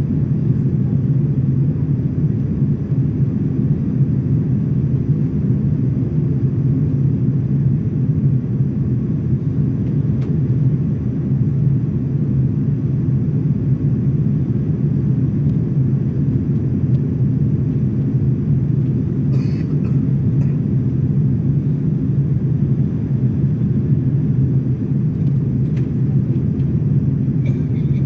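Steady low rumble of a jet airliner in cruise, heard inside the cabin: engine and airflow noise.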